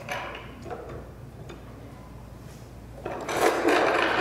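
Casters of a loaded plywood vacuum cart rolling on a concrete floor: a rolling rumble that dies away just after the start, a quieter lull, then louder rolling again from about three seconds in.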